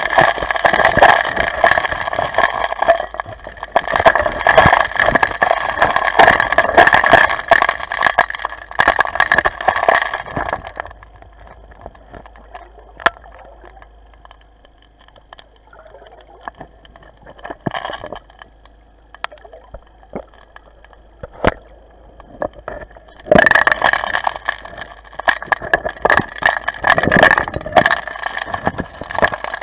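Underwater sound of suction dredging: loud crackling, rattling water noise with a steady high whine, in two long stretches, dropping to a quieter spell of scattered clicks for about twelve seconds between them.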